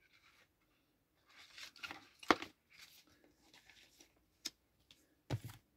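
Paper and card record sleeves being handled, rustling faintly, with a sharp tap about two seconds in, another about four and a half seconds in, and a short dull knock near the end.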